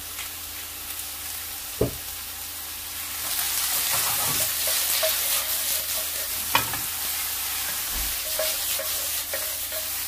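Seafood and vegetables sizzling in a hot frying pan as they are stir-fried, tossed and stirred with a wooden spatula. The sizzle grows louder about three seconds in, and two sharp knocks stand out, the second one the loudest.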